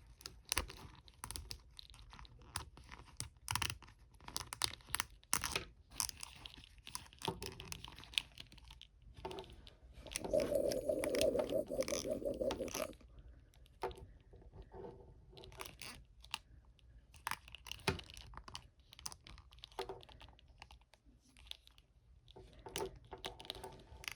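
Small plastic clicks and crackles of an action figure being handled as a hand is swapped onto its wrist. A denser run of crackling comes about ten seconds in and lasts about three seconds.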